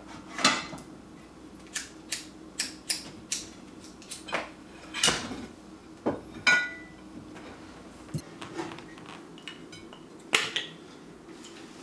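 Dishes and utensils clinking and knocking, a string of sharp separate clatters, one of them ringing briefly about six and a half seconds in.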